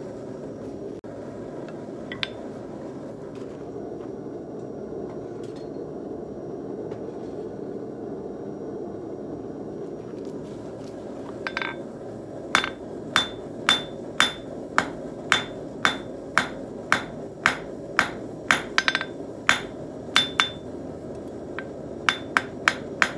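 Hand hammer striking red-hot twisted steel wire on an anvil to flatten it, starting about halfway in: regular blows about two a second, each with a short metallic ring, a brief pause, then quicker strikes near the end. A steady low rushing noise runs underneath throughout.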